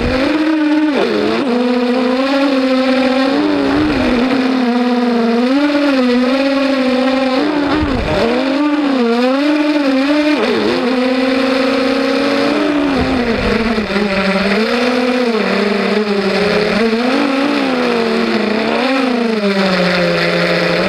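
Brushless motors of a 250-size FPV racing quadcopter whining. The pitch keeps swinging up and down with the throttle as the quad flies the course, and it drops lower near the end.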